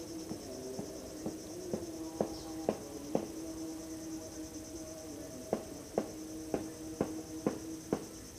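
Riverside insects chirring in a steady high pulse over a low steady drone, broken by two runs of sharp ticks about two a second, the ticks the loudest sound.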